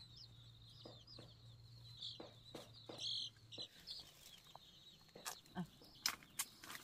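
Chickens calling with short, high-pitched peeps, two or three a second, through the first half. A few sharp knocks come near the end.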